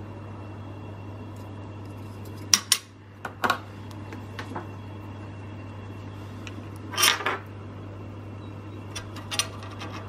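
A few sharp clicks and knocks of a small 3D-printed plastic template clamped on a circuit board being handled and set down on a plastic work mat, in clusters about two and a half, seven and nine seconds in. A steady low hum runs underneath.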